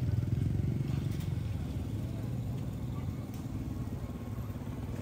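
An engine running with a low, steady throb, growing quieter over the first couple of seconds and then holding level.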